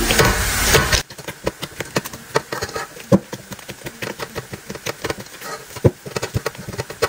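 Hands kneading wheat-flour (atta) dough: irregular soft pats, squishes and light knocks. A steady hiss cuts off abruptly about a second in.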